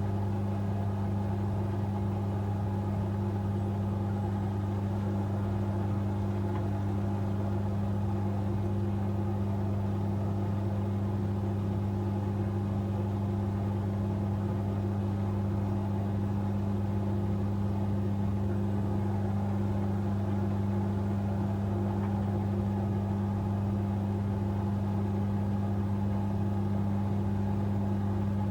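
Asko Quattro W6098X washing machine spinning at high speed in its final spin, a steady loud motor hum with no change in pitch.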